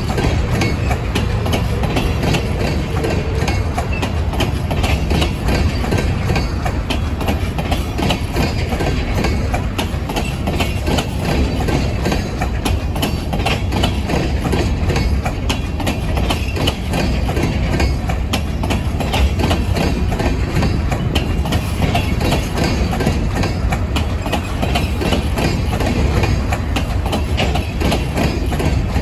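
Freight train of open-top hopper cars rolling past: a steady rumble of steel wheels on the rails, with clicking as the wheels pass over the track joints.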